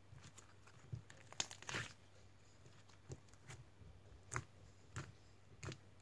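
Slime being kneaded, stretched and pressed by hand, giving scattered sticky clicks and crackles, with a cluster of them between one and two seconds in and single ones every second or so after.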